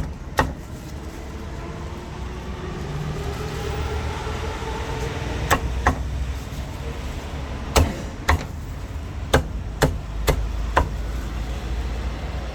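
A cleaver chopping roast meat on a chopping block: sharp single chops, one early, then after a pause of about five seconds a string of about eight chops in quick pairs. A passing vehicle's engine drones, rising and falling, under the pause.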